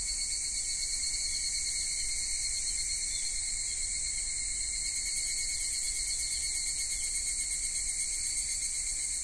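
Crickets chirring steadily in a continuous insect chorus, high-pitched and even.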